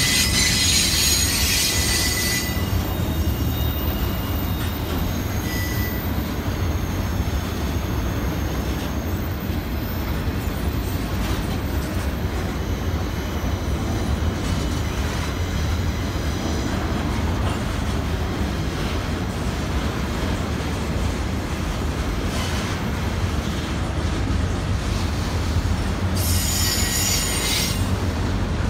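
CSX double-stack container freight train rolling past: a steady low rumble of the cars' wheels on the rail. High-pitched wheel squeal rises over it in the first couple of seconds and again near the end.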